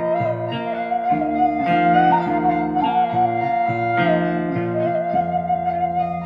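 Background music: a held, slightly wavering melody over lower accompanying notes that change every half second or so.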